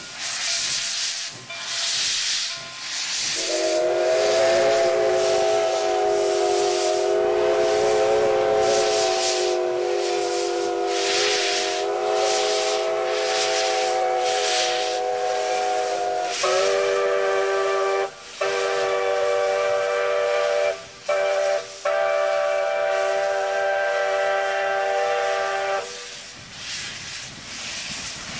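Steam locomotive chime whistles over the hiss of steam venting from open cylinder cocks. The hiss pulses at first; about three seconds in a whistle sounds one long multi-note chord for about thirteen seconds, then a whistle with a different chord takes over, broken by three short gaps, and stops about 26 seconds in.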